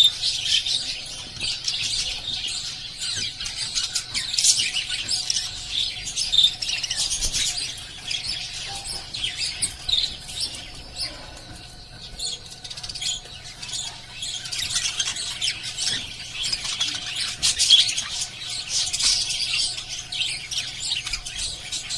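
Several small pet parrots chirping and chattering continuously in high, overlapping calls, easing off for a few seconds midway.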